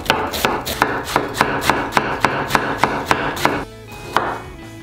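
Tojiro Pro kitchen knife rapidly shredding cabbage on a wooden cutting board, about six quick chops a second in an even rhythm. The chopping stops about three and a half seconds in, followed by one softer stroke.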